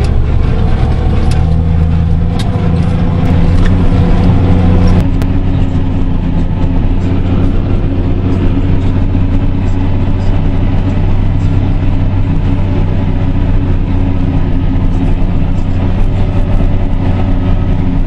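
Fendt 820 tractor's six-cylinder diesel engine running steadily under ploughing load, heard from inside the cab. There are light rattles in the first few seconds, and the engine note changes about five seconds in.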